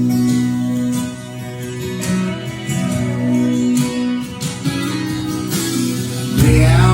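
Background music led by guitar, with held notes and chords and a bass coming in near the end.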